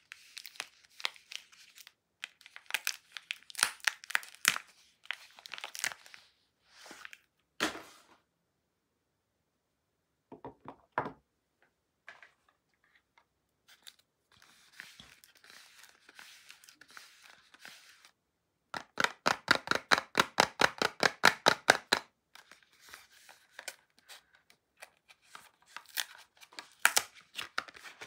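A paper soap wrapper crinkling and tearing as a bar of soap is unwrapped, then a cardboard soap box handled and opened. Midway there is a pause with a few clicks, and later a quick, even run of about eight strokes a second that lasts a few seconds.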